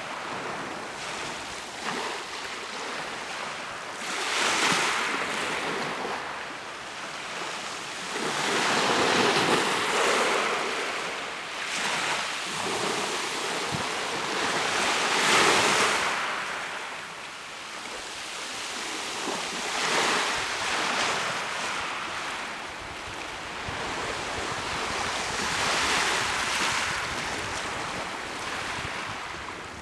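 Mediterranean sea waves breaking and washing on the shore, each surge swelling and falling back every four to six seconds, with some wind on the microphone.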